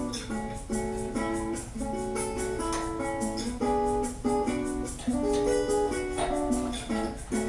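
Upbeat background music led by plucked guitar notes in a quick, regular rhythm.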